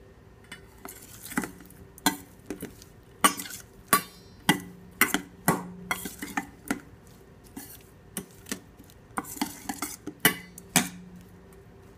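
A metal spoon stirring chunks of mango in a stainless steel mixing bowl: irregular clinks and scrapes against the bowl's side, some leaving the bowl ringing briefly.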